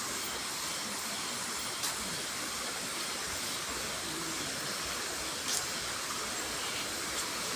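Waterfall: a steady rush of falling water, with a couple of faint clicks.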